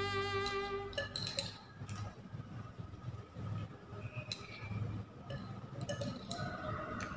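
Light glass clinks of a test tube being handled with a dropper or glass rod, a few separate clinks. A sustained note of background music stops about a second in.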